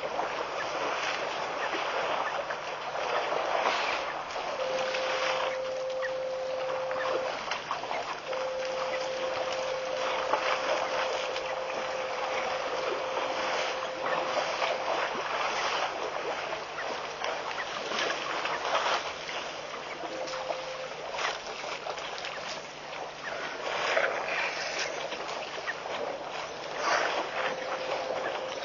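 Steady outdoor rushing noise of wind and water on a waterhole microphone, full of small irregular crackles. A thin steady tone comes and goes several times, longest for several seconds about a third of the way in.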